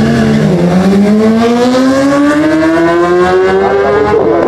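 Sport motorcycles launching from the line at full throttle in a drag race: after brief revving, one engine note climbs steadily in pitch as the bikes accelerate hard.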